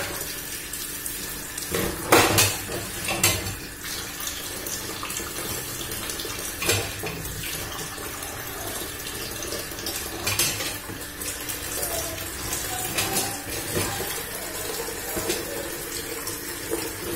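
Kitchen tap running steadily into a steel sink while yam pieces are rinsed by hand, with a few sharp clattering knocks of yam, bowl and pot. The loudest knock comes about two seconds in.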